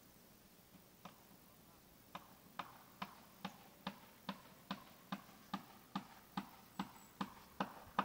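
A steady series of sharp clicks, about two and a half a second, starting about two seconds in after a single faint click and growing louder toward the end.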